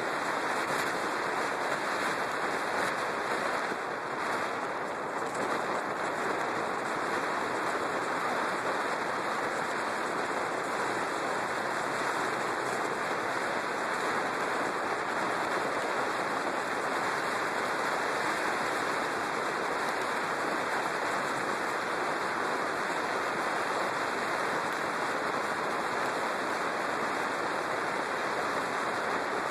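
Steady rush of wind over a motorcycle-mounted camera's microphone while riding along a street, with road noise under it; it eases briefly about four seconds in.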